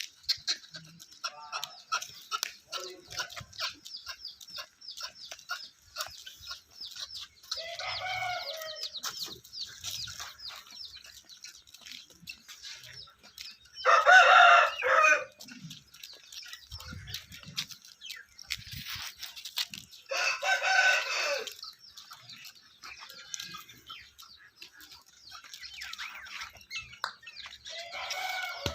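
A rooster crowing several times, with the two loudest crows about halfway through and about two-thirds in, while chickens cluck and small birds chirp constantly.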